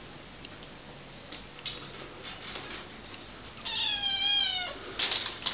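A kitten meows once, a single drawn-out call lasting about a second, a little past the middle. Faint clicks come before it and a short scratchy noise near the end.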